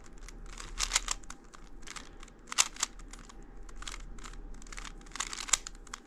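Rubik's Cube layers being turned by hand: quick plastic clicks and rasps in short bursts of twists, with brief pauses between them.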